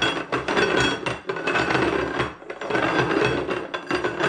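Ceramic bowls being slid and shuffled upside down across a tiled countertop, a busy run of scraping and knocking of glazed stone against tile.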